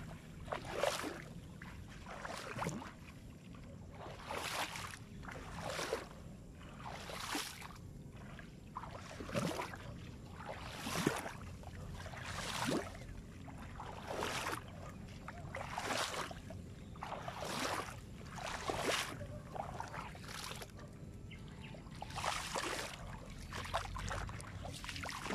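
Footsteps wading through shallow water over mud, a splash with each step, about one step every second or so.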